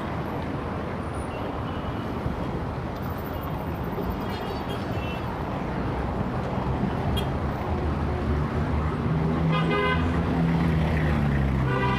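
Heavy city street traffic: a steady wash of engines and tyres, with engine hum building in the second half. Car horns honk in short blasts, a faint one about four seconds in and louder ones near the end.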